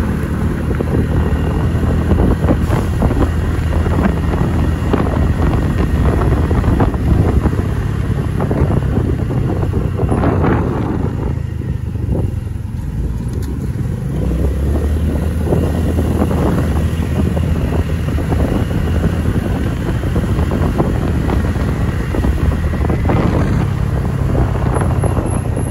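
A motorcycle engine running as it rides along a city street, with wind buffeting the microphone. The engine sound eases for a few seconds near the middle, then picks up again.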